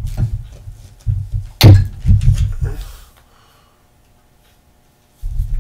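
Dull low thuds and knocks as a metal hand injector and glass measuring cup of plastisol are handled on the worktable, several in the first three seconds, then quiet for about two seconds before more bumps near the end.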